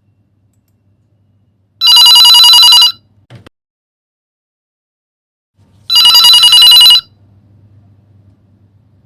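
Telephone ringing: two rapid trilling rings of about a second each, the second starting about four seconds after the first.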